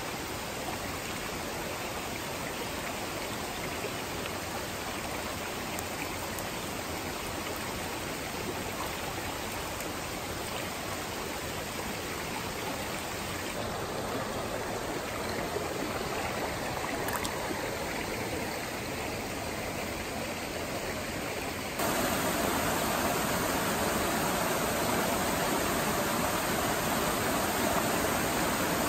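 A small forest brook rushing over riffles and small cascades, a steady rush of water. About two-thirds of the way in it gets suddenly louder and fuller, beside a stepped cascade.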